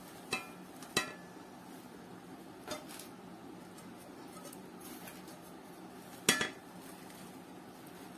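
Aluminium non-stick pans knocking against each other as they are handled, four clinks with a brief metallic ring, the loudest about six seconds in.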